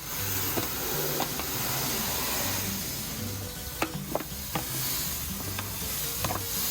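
Dry sand being poured and stirred around: a steady gritty hiss with scattered small clicks.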